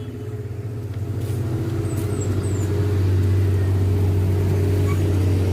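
Motor vehicle engine running with a steady low hum, getting louder over the first few seconds, then holding level.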